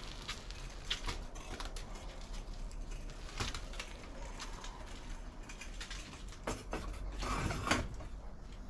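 Shovel scraping and knocking as wet cement-sand mortar is worked out of a cart onto a foundation: scattered short scrapes throughout, with a longer, louder scrape about seven seconds in.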